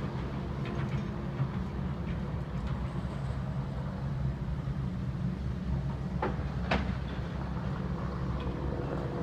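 Steady low mechanical drone with a few scattered clicks, two sharper ones close together a little past the middle.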